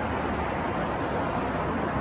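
Steady city traffic noise mixed with wind: an even, unbroken hiss and rumble with no single vehicle or event standing out.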